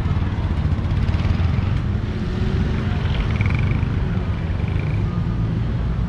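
Street traffic: small vans and a light truck driving past, their engines giving a steady low rumble.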